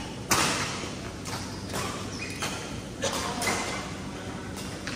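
Badminton rally: racket strings hitting a shuttlecock, starting with a hard overhead smash about a third of a second in, the loudest hit, followed by several lighter strokes and short squeaks of shoes on the court mat.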